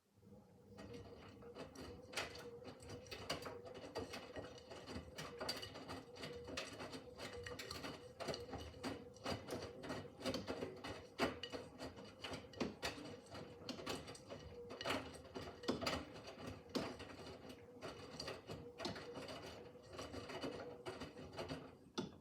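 Miele W5801 WPS washing machine drum turning with the laundry: a steady motor hum with irregular clicking and rattling. It starts suddenly and stops suddenly near the end.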